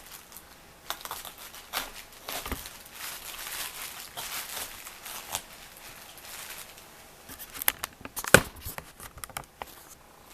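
Kitchen handling noises: scattered clicks, light rustling and clatter, with one sharper knock about eight seconds in.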